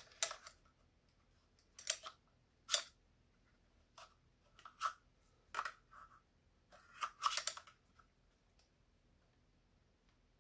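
Hard plastic parts of a UniFi G3 Flex camera and its in-ceiling mount clicking and scraping as they are handled and slid apart. Scattered short clicks, with a quick run of them about seven seconds in.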